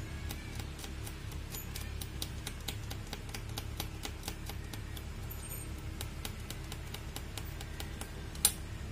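A small metal blade scraping the legs of a new electrolytic capacitor, making quick irregular clicks with one sharper click near the end. The leads are being scraped clean so the solder will take.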